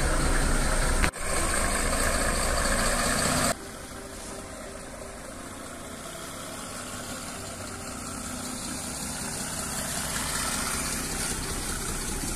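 Mercedes W124 300D diesel car running. The engine and road noise are loud and even at first, with a brief dip about a second in. About three and a half seconds in the level falls abruptly, and a quieter steady sound slowly builds.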